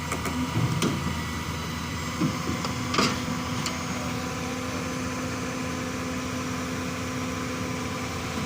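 Hyundai 220 excavator's diesel engine running steadily as the machine climbs onto a trailer, with a few knocks or clanks of metal in the first three seconds, the loudest about three seconds in.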